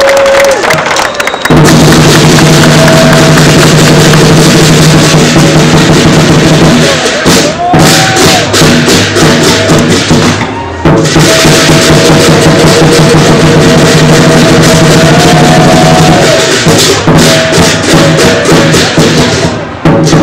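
Lion dance percussion: the big drum beaten loud and fast with ringing gongs and clashing cymbals. It starts about a second and a half in, with a short break about eleven seconds in.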